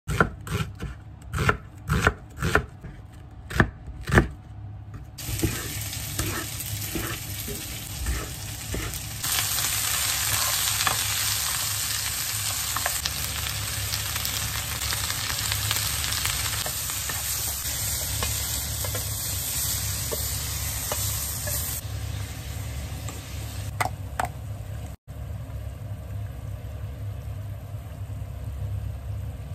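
A kitchen knife chopping onion on a bamboo cutting board, about ten sharp knocks in the first four seconds. Then onion and bok choy sizzling as they are stir-fried in a frying pan, with light taps of the utensil against the pan. The sizzle gets louder about nine seconds in and drops to a quieter hiss a little over twenty seconds in.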